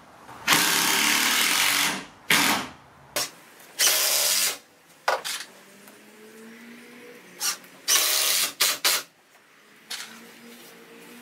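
Cordless drill-driver running in short bursts, driving screws to fix a shop light fixture to a wooden batten: about nine bursts, the longest over a second near the start, the rest brief.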